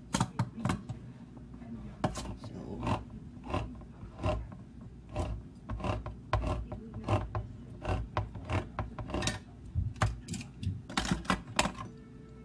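Handheld manual can opener cranked around a tin can of diced tomatoes: a long run of uneven clicking and ratcheting ticks, about two or three a second, bunching closer together near the end.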